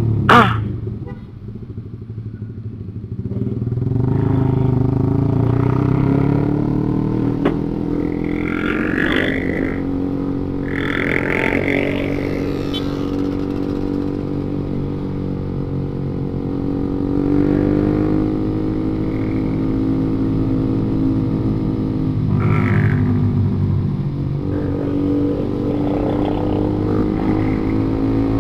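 Motorcycle engine running on the move, its pitch drifting slowly up and down with speed, among other road traffic. There is a sharp knock right at the start, and the engine is quieter for a couple of seconds before it picks up again about four seconds in.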